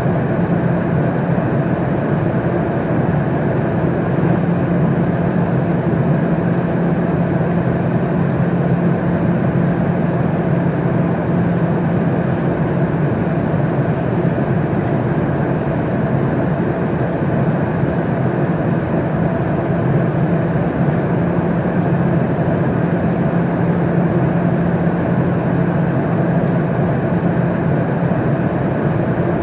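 Airliner cabin noise in flight: a steady, even rush of engine and airflow noise with a constant low drone underneath, unchanging throughout.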